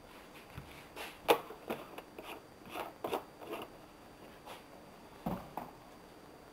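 Thin plastic water jug being handled: a run of crackles and light knocks from the flexing plastic, then a dull thud about five seconds in as it is set down on the table.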